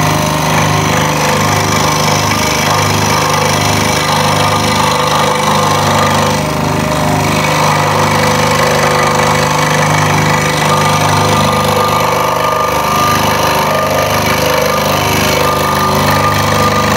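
Scroll saw running steadily, its reciprocating No. 7 modified-geometry blade cutting a curved outline through a wooden board as it is fed and turned by hand, with a fast even rattle under a steady motor hum.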